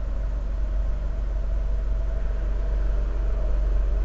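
Steady low rumble with a hiss over it, growing slightly louder near the end.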